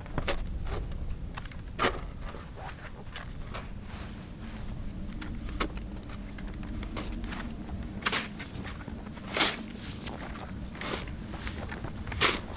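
Snow shovel digging and scraping through deep snow, irregular crunches every second or two, the loudest near the end.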